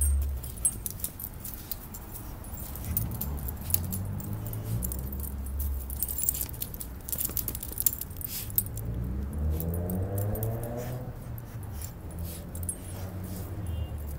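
Small metal dog tags jingling in quick irregular runs as a dog shakes and tugs a cloth toy in play, over a low rumble. About ten seconds in, a short rising whine.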